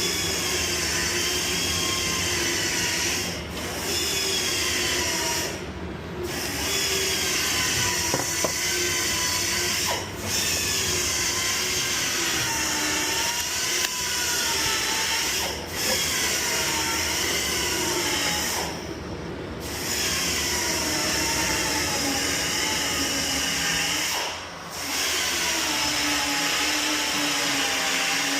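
Power sander running with a whine that rises and falls in pitch as it is worked. It stops briefly several times and starts again.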